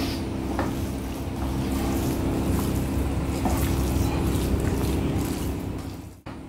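A hand mixing raw stingray liver into grated coconut sambal in a metal pan, with soft squelching and a few light ticks, over a steady low kitchen hum. The sound cuts off abruptly near the end.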